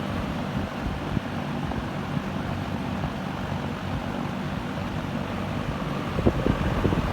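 Lakewood-built Windsor model P-23 20-inch metal-blade box fan running, a steady rush of moving air over a low motor hum.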